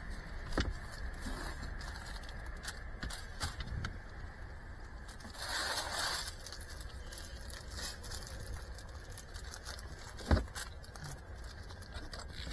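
Quiet handling sounds: scattered small clicks, a brief rustle of a plastic bag about six seconds in, and a sharp knock a little after ten seconds.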